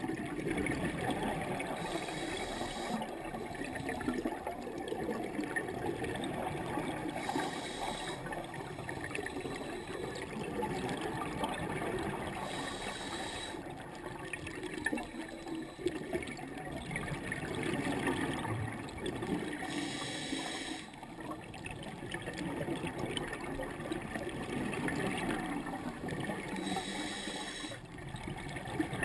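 Scuba diver breathing through a regulator underwater: a hiss of breath about every six seconds, five times, over a continuous low rushing noise.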